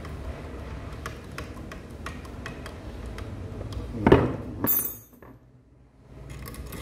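Moped engine parts and hand tools being handled on a workbench: scattered small metallic clicks, with one loud knock about four seconds in followed by a sharp ringing metal clink.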